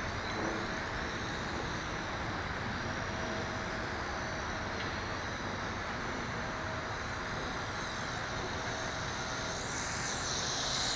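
WLtoys V262 quadcopter's motors and propellers running steadily in flight, with a high whine that rises and falls near the end as it turns.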